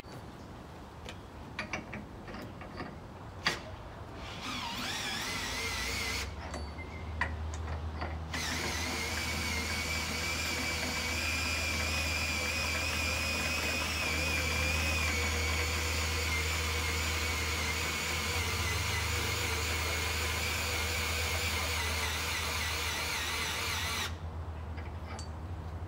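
Hilti core drill motor spinning up with a rising whine, cutting out briefly, then running with a steady high whine until it stops near the end. A low steady hum runs underneath throughout, with a few clicks before the drill starts.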